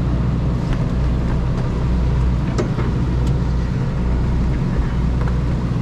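A sport fishing boat's engine running with a steady low drone, and a few faint clicks over it.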